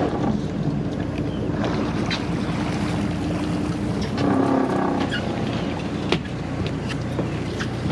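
Boat motor running steadily under wind and water noise, with a sharp knock about six seconds in.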